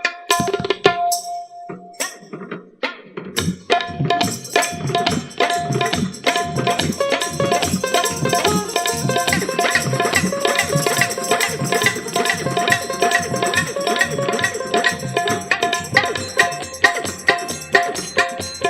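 Instrumental interlude of a Baul folk song: hand drums play a fast, dense rhythm under a steady melodic line. The first few seconds are sparse, with scattered strokes, and the full ensemble comes in about four seconds in.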